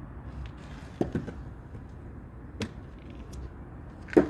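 A ball bouncing on concrete: three short knocks about a second and a half apart, the last the loudest, over a low steady background rumble.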